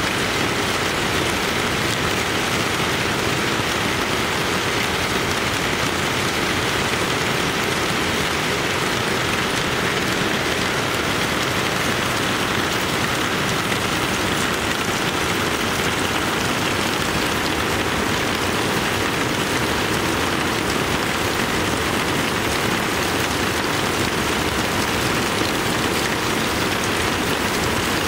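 Heavy rain falling steadily on the broad leaves of Musa basjoo banana plants and the grass, with water pouring off a roof edge.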